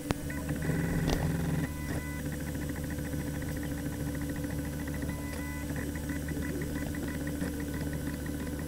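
Snapmaker 2.0 3D printer with its dual extrusion module running an XY calibration print: the motors drive the print head with steady whining tones that change pitch as the moves change, with a rapid ticking through the middle. A sharp click comes right at the start.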